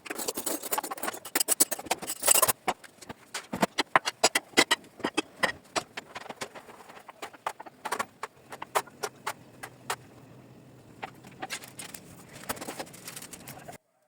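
Clatter of household objects being handled and set down, with quick clicks and knocks throughout and a rough scraping or scrubbing noise in the first couple of seconds. A low steady hum comes in about halfway, and the sound cuts off suddenly just before the end.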